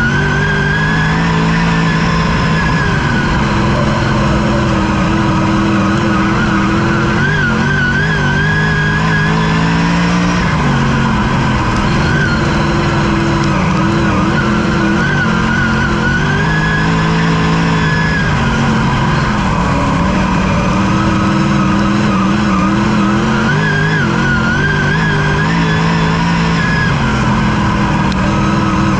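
Race car engine heard from inside the cockpit, running hard and loud, its pitch climbing and dropping in a repeating cycle about every seven or eight seconds as the driver accelerates and lifts around the dirt oval.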